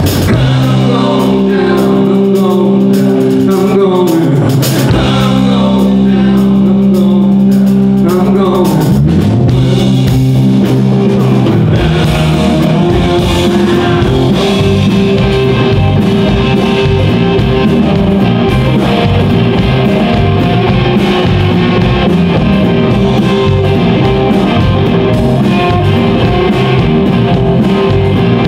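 Live blues-rock band playing: electric guitar, bass guitar and drum kit. Long held chords with a male voice singing over them for about the first nine seconds, then a busier, rhythmic instrumental passage.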